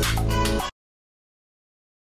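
Background music that cuts off abruptly less than a second in, followed by complete silence.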